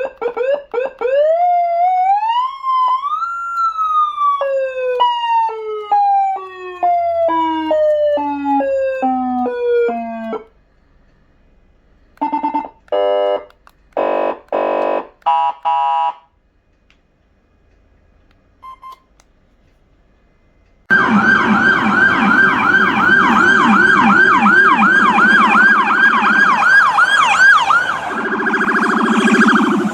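AS940 400-watt electronic siren sounding through its speakers and switching between tones. First a pitch that rises, then falls in short steps. Then a few short buzzy horn-like blasts and a brief beep. From about two-thirds in, a loud fast warble rises over and over, several times a second.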